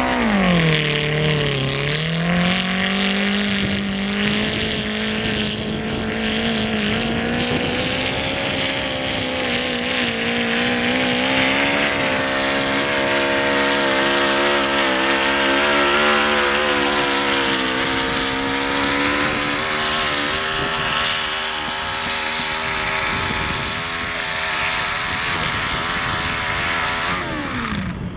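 Modified lawn pulling tractor's engine running hard under load as it drags a weight-transfer sled. The engine note sags about a second in, then holds high and steady, rising slightly, and falls away near the end as the throttle comes off. Wind buffets the microphone throughout.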